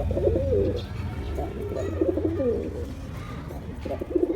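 Male pigeon cooing in its display call: repeated wavering, throaty coo phrases, one at the start, one in the middle and another beginning near the end. A low rumble sits underneath for the first half.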